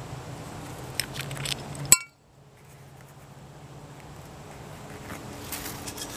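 A few light handling clicks, then one sharp clink with a brief ringing note about two seconds in, from the glazed china plate shard striking something hard. A few more scuffs and clicks come near the end.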